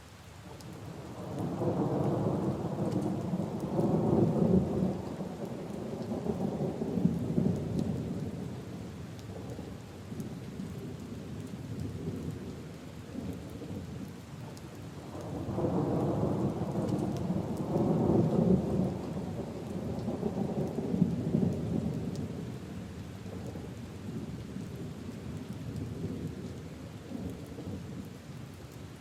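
Steady rain falling, with two long rolls of thunder: one building about a second in and rumbling away over several seconds, the second swelling about halfway through and fading out the same way.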